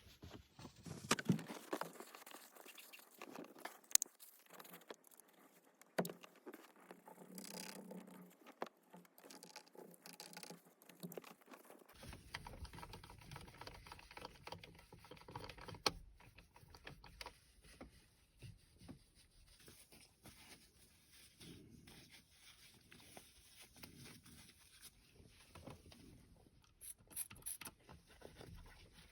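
Faint rubbing and scraping on a car's plastic steering-wheel buttons, with many small irregular clicks, as the sticky soft-touch coating is worked off.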